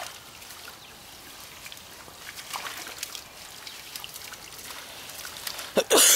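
Water trickling and splashing in a pond as a drag net is hauled through it, with two loud short bursts right at the end.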